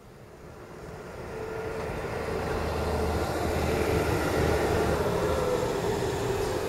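Engine noise growing louder over the first few seconds, then holding steady as a low hum with a single held tone.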